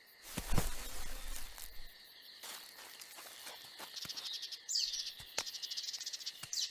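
AI-generated (Google Veo 3) night-forest ambience: steady insect chirring with high bird chirps about five seconds in and again near the end. A few short taps and rustles run through it, with a louder muffled thud and rumble in the first two seconds.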